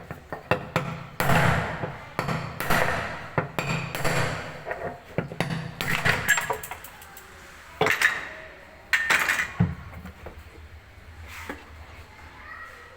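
Irregular metallic knocks and clanks, a dozen or so sharp strikes with some ringing, over a low steady hum.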